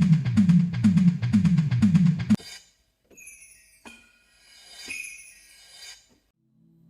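Music with a heavy, even drum beat, about two beats a second, that cuts off abruptly about two and a half seconds in. Faint high chirps with falling sweeps follow.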